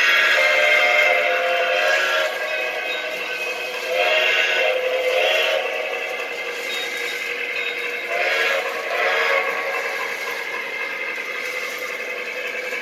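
Lionel Legacy two-truck Shay's electronic steam whistle sounding through its Railsounds speaker. A long blast ends about two seconds in, then two short blasts come about four seconds in and two more about eight seconds in, over the train's steady running sound.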